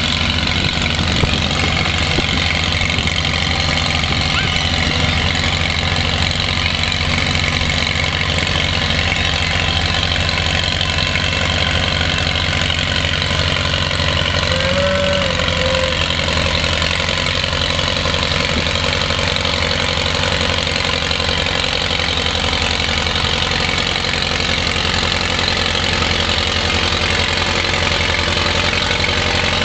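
An old tractor's engine running steadily under load as it pulls a weight-transfer sled down a dirt pulling track, its note hardly changing throughout.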